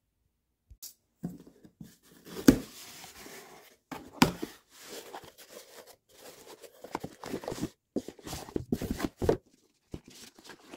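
Cardboard shipping box being opened and handled by hand: flaps rustling and scraping, with sharp knocks of cardboard about two and a half and four seconds in, then a busy stretch of rustling as the gift box inside is handled.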